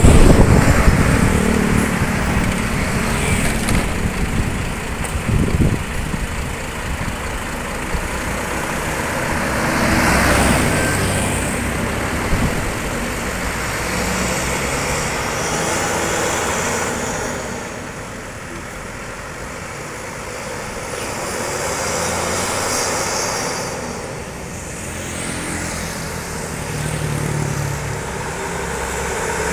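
Road traffic passing close by: buses and other vehicles drive past one after another, with engine and tyre noise swelling and fading several times. No horn melody stands out.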